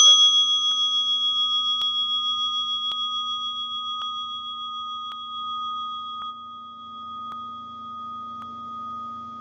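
Singing bowl struck once, ringing on with a bright high tone and a fast waver, slowly fading and dropping quieter about six seconds in.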